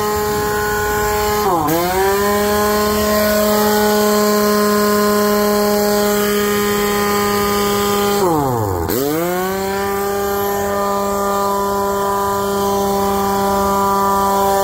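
Elephant IW04 one-inch air impact wrench spinning freely with its trigger held, a steady whine that dips in pitch and spins back up twice, once about a second and a half in and again about halfway through. It is being run to bleed the tank pressure so the compressor's automatic pressure switch cuts back in.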